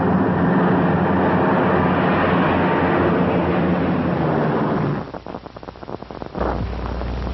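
Aircraft engines running steadily and loudly, cutting off abruptly about five seconds in and leaving a faint crackle and a low hum.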